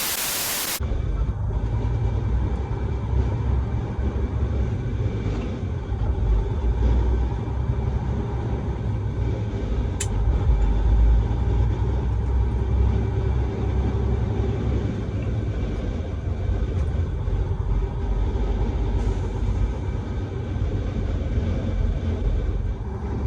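Caterpillar 3406B diesel engine of a semi truck running, heard from inside the cab as a steady, loud, low rumble. A short burst of hiss fills the first second.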